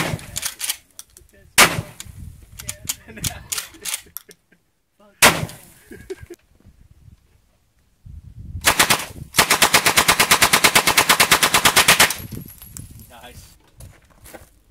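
Single loud shotgun blasts, three of them spaced a few seconds apart, each ringing out afterwards, from a Remington 870 12.5-inch short-barrel 12-gauge pump shotgun. About nine seconds in, a 9mm UZI submachine gun fires a few shots, then a long full-auto burst of about three seconds at roughly ten shots a second.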